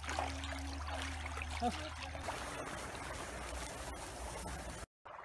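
Water running steadily, a stream-like rush and trickle, broken off for a moment near the end.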